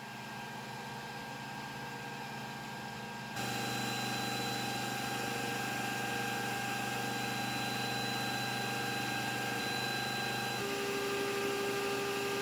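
Tronxy P802MA 3D printer's stepper motors whining steadily as the Z axis lowers the nozzle toward the bed during auto-homing. It gets louder about three seconds in, and a lower tone joins near the end.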